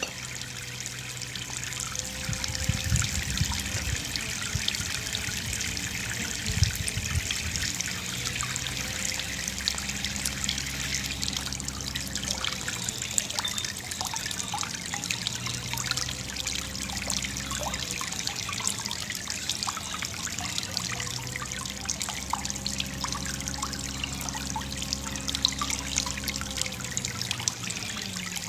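Water spraying from showerheads and pattering and trickling down in a steady stream of droplets, with a faint low steady hum underneath.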